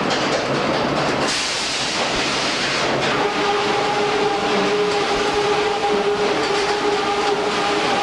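Sawmill machinery running: a steady clattering din, with a hiss from about one to three seconds in and a steady whine from about three seconds on.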